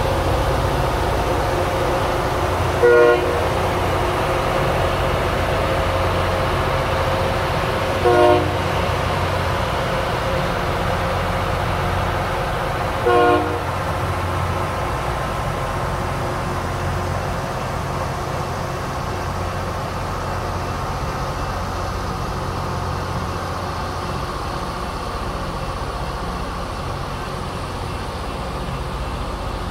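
LORAM rail maintenance train rolling slowly past, its engines and wheels making a steady low rumble and drone that eases slightly toward the end. Three short horn toots sound about five seconds apart in the first half.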